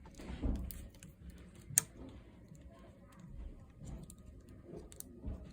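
Scattered small clicks and handling noises of hands working a connector inside an opened Chromebook, with one sharper click a little under two seconds in.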